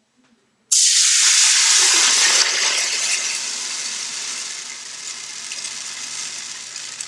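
Liquid rice-and-milk pudding mixture poured into a hot oiled pot, sizzling hard on contact. The hiss starts suddenly about a second in, is loudest for the first couple of seconds, then slowly dies down as the pot cools under the liquid.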